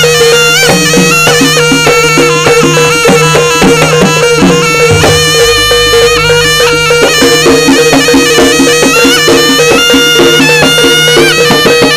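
Loud Javanese jaranan ensemble music: a reedy slompret shawm plays a bending, ornamented melody over kendang drumming and a steady held tone.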